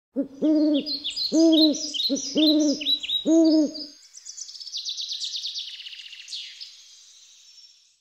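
Owl hooting five times at an even pace, about a second apart, over high songbird chirps. From about halfway through, a fast high birdsong trill continues on its own and fades out.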